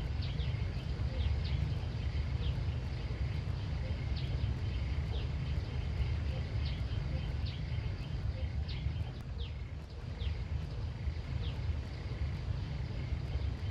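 Outdoor country ambience: a steady high insect hum with short, high, falling chirps repeating a little faster than once a second, over a loud low rumble.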